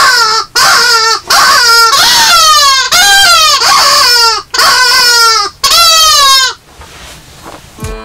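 Hand-made gull call (a bird-call whistle) blown in runs of falling, wailing cries, about two a second, imitating a gull, stopping about six and a half seconds in.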